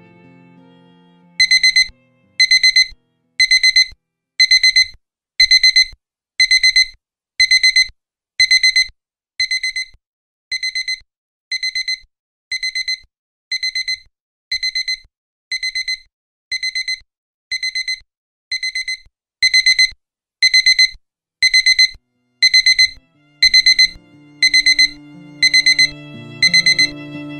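Digital alarm clock beeping: a burst of rapid high-pitched beeps about once a second, repeating steadily. Music comes back in underneath near the end.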